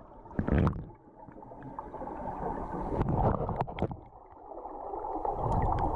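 Muffled water sounds of a swimmer moving in the spring, heard through a camera at or under the surface: sloshing and gurgling, with a louder splash about half a second in.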